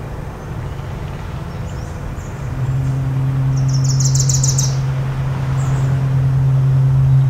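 A foghorn sounds one long, low, steady blast that starts about two and a half seconds in and is still going at the end. About a second after it begins, a bird gives a quick, rapid high chirping trill.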